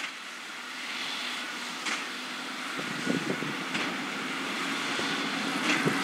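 John Deere 6250R tractor running under load as it pulls a Massey Ferguson 2270XD big square baler through straw: a steady engine drone with a few brief knocks, growing louder as it comes closer.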